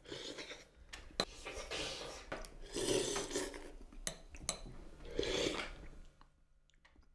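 Scraping, rasping noises in four bursts, with sharp clicks and clinks between them, such as dishes and cutlery make. It is a repeated noise of the kind that bothers someone with misophonia, and it is called out straight after as 'that noise again'.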